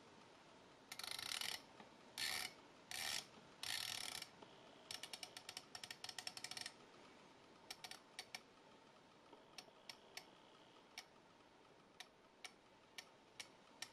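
Hardened-titanium 120-click unidirectional dive-watch bezel being turned by hand, ratcheting. It gives four short rasping runs of clicks, then a longer run of rapid clicks, then single clicks one at a time, spaced out toward the end. The sound is faint, and the titanium makes it sound different from a steel bezel.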